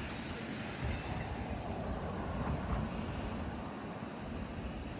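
Steady low rumble of city traffic, swelling slightly a couple of seconds in.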